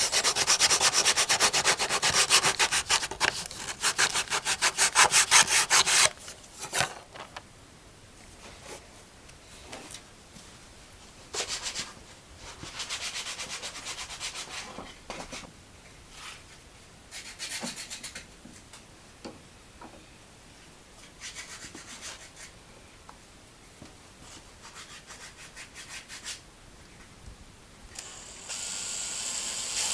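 Hand saw cutting wood in quick back-and-forth strokes for about six seconds, then fainter, intermittent sawing strokes. Near the end a steady hiss starts.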